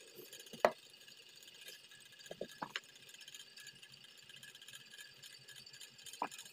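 Handling sounds from cutting velvet fabric with scissors: a sharp click about half a second in, a few quick clicks and snips around two and a half seconds, and another click near the end, over a faint steady hiss.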